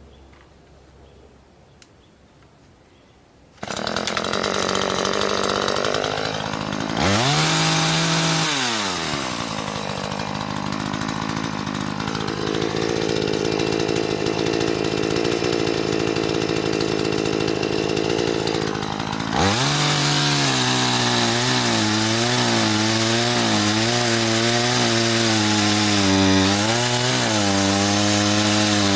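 A two-stroke gas chainsaw comes in suddenly, revs up and back down once, then runs steadily. Near the end it goes to full throttle with its pitch wavering under load as it cuts into wood.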